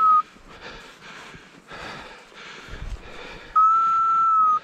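A steady whistle tone that ends just after the start, and a second one, held about a second, near the end. In between, footsteps crunch through snow.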